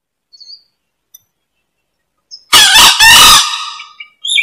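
Green junglefowl cock crowing once, a loud short call in two parts about two and a half seconds in, fading after about a second.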